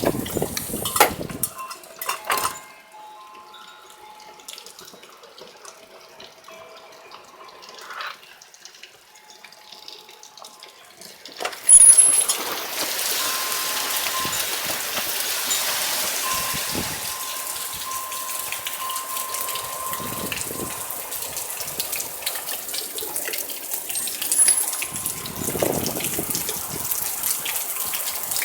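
Heavy rain from a severe thunderstorm. It is lighter at first, with a few sharp knocks, then about twelve seconds in it jumps suddenly to a loud, steady downpour.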